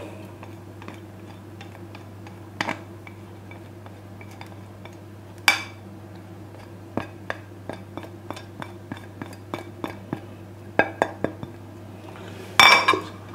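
A utensil clinking and knocking against a mixing bowl as creamed butter and sugar are mixed with egg and lemon zest: scattered light clicks with a few louder knocks, over a low steady hum.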